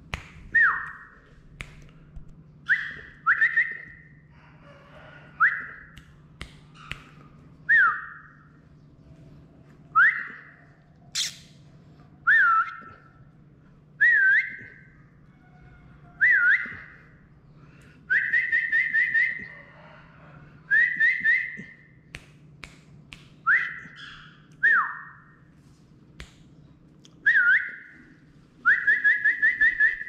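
Person whistling to call a pet cockatiel: a string of loud whistles about every two seconds, most sliding down in pitch, with a rapid warbling trill twice, and sharp clicks in between.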